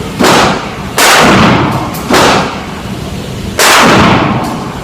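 Mossberg 500 pump-action shotgun fired four times in quick succession, the first two less than a second apart. Each loud blast trails off in a long echoing decay.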